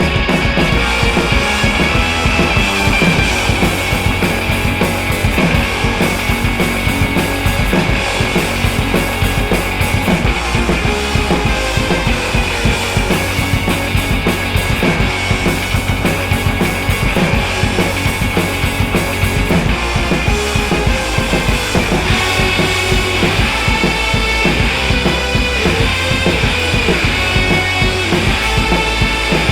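Loud rock music with drums and guitar and a steady beat.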